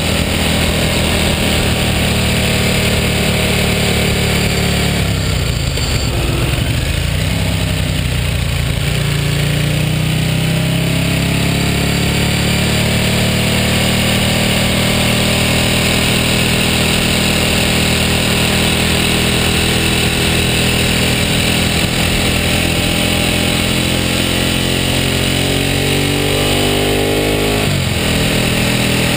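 Ducati superbike's V-twin engine running under way, heard from low on the front of the bike with wind rush. The engine note drops about five seconds in and climbs back over the next several seconds, then rises again and falls away sharply near the end.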